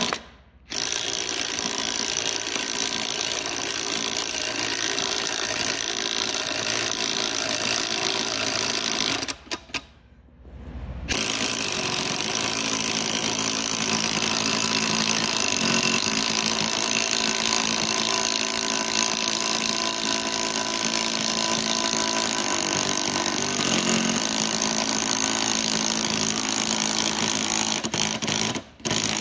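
Impact wrench running on a two-jaw puller's forcing screw, pulling the front ball bearing off a 15 hp electric motor's shaft. It runs steadily for about nine seconds, stops briefly, then runs again for about seventeen seconds before stopping near the end.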